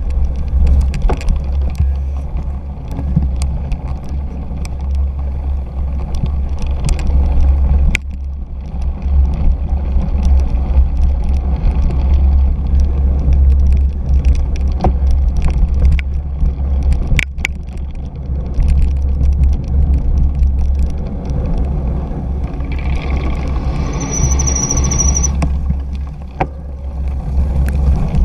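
Cyclocross bike ridden over bumpy grass and dirt, picked up by a bike-mounted camera: heavy wind buffeting on the microphone over tyre rumble, with scattered knocks and rattles from the bike over bumps. A high squeal lasts a couple of seconds near the end.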